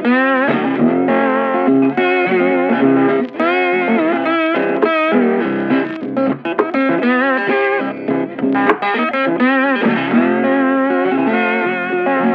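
Background music: an electric guitar playing a melodic line with bends and vibrato over sustained chords.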